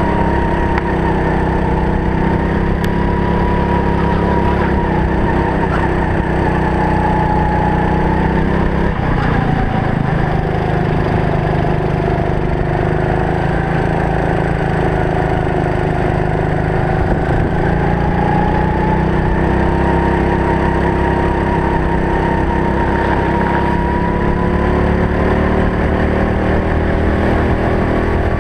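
Racing kart engine running hard at race pace, its pitch slowly falling and rising as the kart comes off and back onto the throttle through corners, with a brief drop about nine seconds in.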